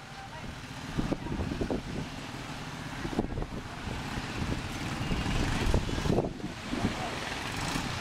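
Outdoor street ambience: motor traffic noise, with wind rumbling and buffeting on the microphone.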